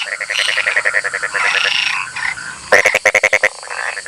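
Frogs croaking in rapid pulsed trains, several calls overlapping, with a loud burst of quick pulses about three seconds in.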